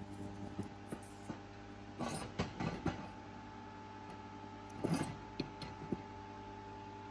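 Steady electrical hum of running equipment, with two short clusters of knocks and clatter about two seconds in and about five seconds in.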